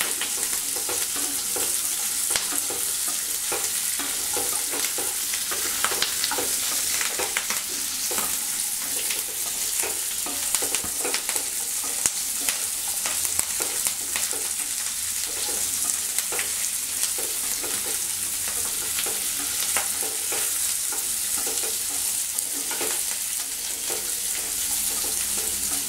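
Oil sizzling in a non-stick pan as whole shallots, garlic cloves, tomatoes and dried red chillies are sautéed, with a wooden spatula stirring and scraping the pan in irregular strokes.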